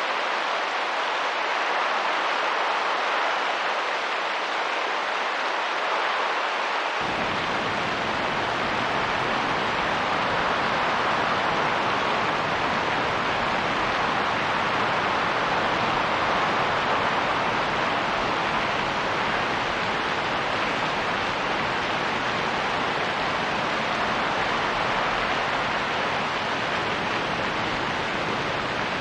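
Steady rain and wind, an even hiss with no gusts or drops standing out; a deeper rumble comes in about seven seconds in.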